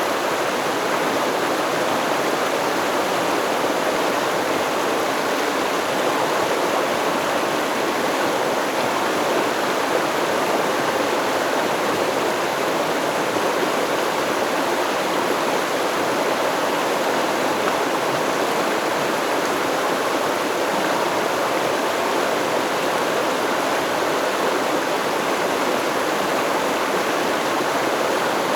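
Steady rushing and babbling of a stream flowing over rocks, an even, unchanging wash of water noise.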